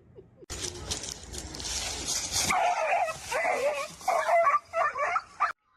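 A dog whining and yipping in a run of high, wavering cries through the second half, after a rush of rustling noise. The sound cuts off abruptly near the end.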